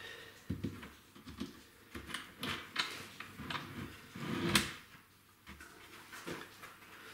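Hand work on wooden jig parts: a series of irregular knocks and clicks with some rubbing, the loudest a knock with a short scrape about four and a half seconds in.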